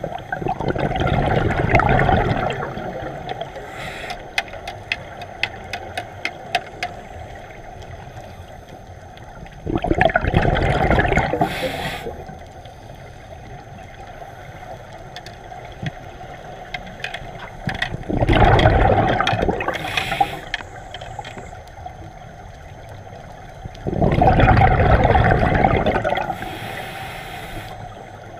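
A scuba regulator's exhaust underwater: four loud bubbling rushes of exhaled breath, each about two seconds long and spaced about eight seconds apart, with quieter stretches of breathing between them. A run of small clicks comes about four seconds in.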